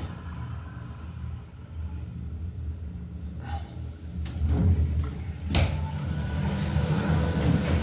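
Low steady mechanical rumble and hum inside an elevator car, growing louder about halfway through, with a couple of sharp knocks about three and a half and five and a half seconds in.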